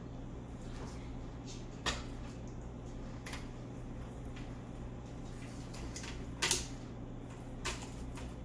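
A few short sharp knocks and clinks of a beer can and wire chicken stand against a metal sheet pan and rack as a whole chicken is handled and set onto the can, the loudest about six and a half seconds in, over a steady hum.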